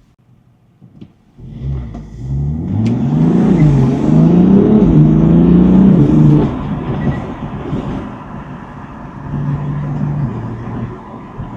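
BMW M4 (F82) twin-turbo straight-six under acceleration: after a moment of near silence the engine note rises and falls several times, loudest in the middle, then eases to a lower, steadier note.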